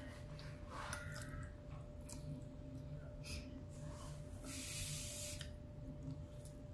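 Close-up eating sounds: a person chewing a mouthful of rice and beans with soft wet mouth clicks and smacks, and a plastic fork scooping from the plate. About halfway through comes a soft hiss lasting about a second, over a faint steady hum.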